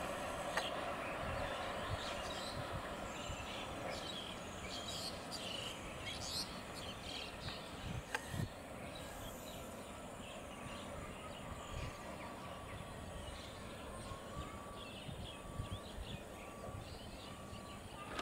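Faint outdoor ambience of birds chirping and insects over a steady hiss. Under it is the low rumble of a distant approaching electric local train, strongest in the first few seconds.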